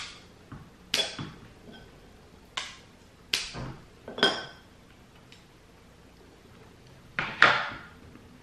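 Scissors snipping open a chew bar's plastic wrapper: several sharp metallic snips spaced a second or so apart, some with a brief ring. Near the end comes a louder double clack as the scissors are set down on the wooden table.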